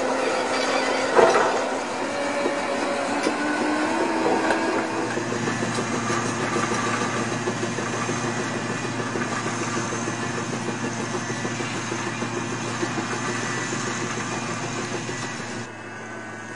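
Engine of a pipe-laying machine running steadily, with a single loud clank about a second in; the sound drops off sharply near the end.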